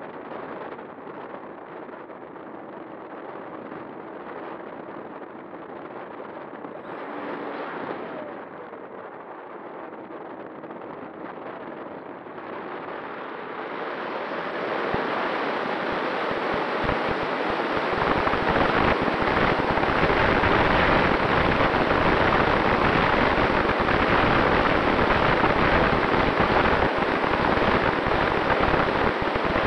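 Airflow rushing over the onboard camera's microphone of a Skua FPV flying wing in flight, mixed with its propeller's hum. The rushing swells markedly about halfway through and stays loud and steady.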